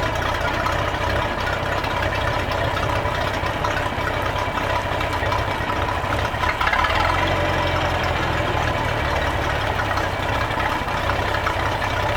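Boat engine running steadily at raised speed with the shift put in forward; the note steps up slightly about seven seconds in. The drive is not going into gear.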